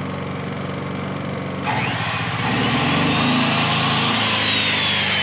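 Yamaha EF3000iSEB inverter generator idling low in economy mode. About one and a half seconds in, a corded 15-amp circular saw starts up with a rising whine, and the generator's engine bogs down, almost stalling under the sudden load, then picks up speed and runs faster to carry the saw.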